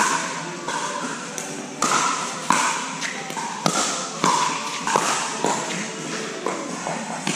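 Pickleball paddles hitting a plastic pickleball back and forth in a fast doubles rally: about a dozen sharp pops, one every half second or so.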